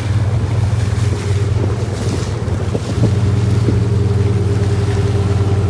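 Boat engine running steadily with a low, even drone, with wind buffeting the microphone.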